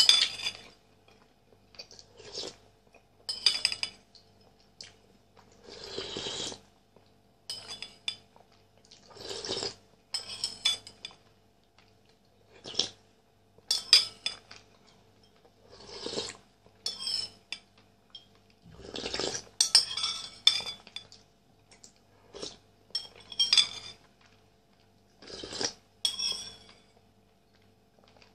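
Metal spoon clinking against a ceramic soup bowl, with wet slurping sips of soup. These come in short irregular bursts every second or two.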